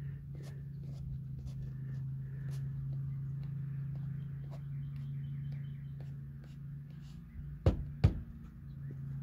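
A hand working on a truck's metal door jamb while a stick-on grab handle is pressed in place: light scattered clicks and rubs over a steady low hum. Near the end come two sharp knocks less than half a second apart, as the hand comes off the jamb.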